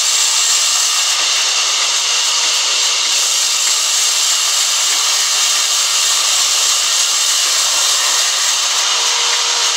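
Large vertical band saw ripping a log lengthwise: a loud, steady hiss of blade and wood that holds without a break.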